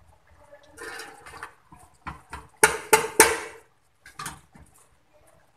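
Steel cooking pot and colander clattering and knocking as boiled rice is scooped and layered by hand: a few short metallic knocks with a little ringing, the loudest cluster about two and a half seconds in and a smaller one near the end.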